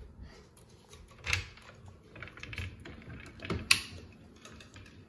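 A few scattered light taps and clicks, the two loudest about a second in and a little past three and a half seconds in.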